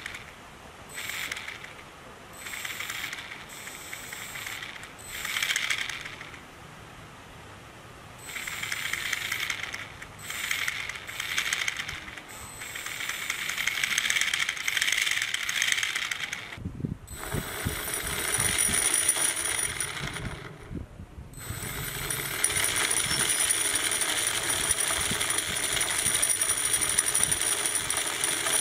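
Small electric motor driving a homemade RC-helicopter reduction gearbox: several short whirring spin-ups with a gear rattle over the first half, then longer, steadier running with a high whine after a brief stop about three-quarters of the way in.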